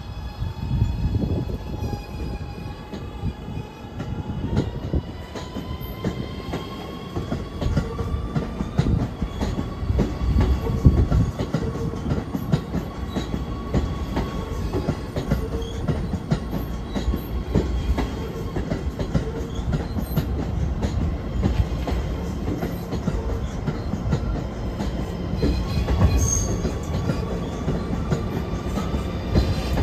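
Kawasaki R211A subway train pulling into a station and rolling slowly along the platform. Wheels knock over the rail joints under a low rumble, and a steady high whine rises slightly over the first several seconds and then holds.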